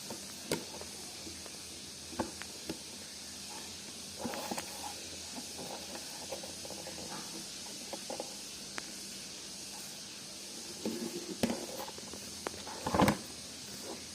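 Steady hiss with no voice or other strange sound in it, broken by scattered light clicks and a few louder knocks near the end.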